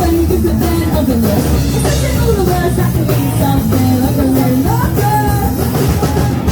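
A punk rock band playing live, with a singer's voice over the band.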